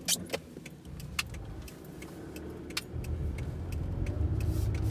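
Car driving slowly, heard from inside the cabin: a low engine and road rumble that grows louder about three seconds in. Keys hanging from the rear-view mirror clink now and then as short, sharp ticks.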